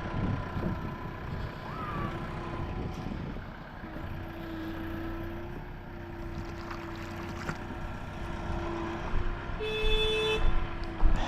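Farm tractor engine running steadily, with a held mid-pitched drone through most of it. A short, higher tone sounds briefly about ten seconds in, and there are a few knocks near the end.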